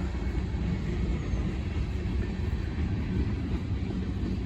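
Freight train cars rolling past, a steady low noise of steel wheels on the rails.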